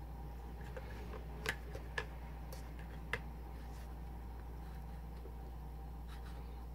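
Plastic spatulas scraping and tapping on the frozen metal plate of a home ice-cream pan, chopping a freezing cream mixture: a few sharp clicks about a second and a half, two and three seconds in, over a steady low hum.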